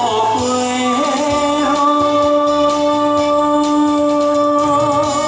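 A man singing into a microphone over backing music, holding one long note through most of it, with a slight waver near the end.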